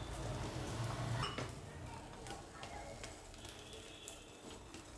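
Beaten egg frying quietly in a non-stick pan under a chapati, the sizzle fading, with a few light clicks of a plastic spatula against the pan.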